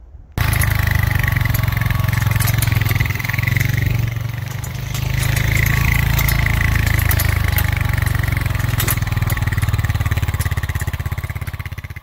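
Four-wheeler (ATV) engine running at low speed as it tows a loaded steel mesh utility cart over a rough dirt trail, with scattered sharp clicks and rattles. The engine eases off briefly around four to five seconds in, then picks up again.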